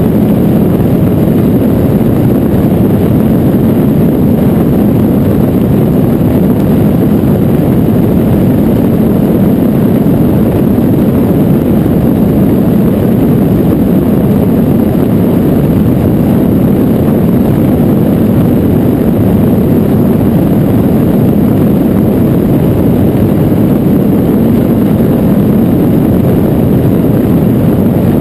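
Open-cockpit flex-wing microlight trike in cruising flight: a loud, steady drone of its engine and propeller blended with wind rushing over the microphone.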